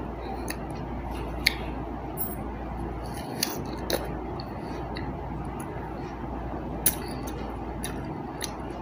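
Eating crisp fruit: a few short, sharp bite and chewing clicks scattered over a steady background hiss and low hum.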